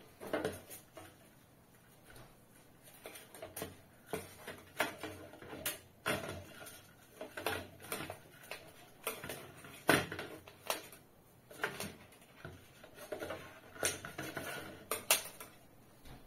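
Irregular clicks, taps and knocks of hands handling the plastic base, driver box and wiring of an LED ceiling light, with the loudest knock about ten seconds in.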